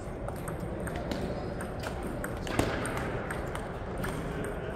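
Table tennis rally: the plastic ball clicking off the paddles and bouncing on the table in quick, irregular clicks, with one sharper hit about halfway through. There is steady background noise of a large gym.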